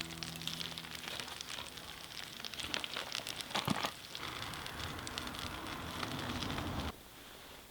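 Wood fire crackling, with irregular pops over a steady hiss; it cuts off abruptly about a second before the end.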